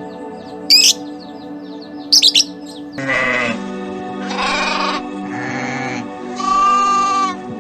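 Goat bleating four times in a row in the second half, over steady background music, after two short high bird chirps in the first half.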